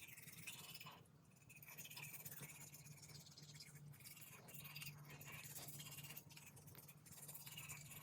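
Near silence: faint room tone with a low steady hum and a few faint scratchy ticks.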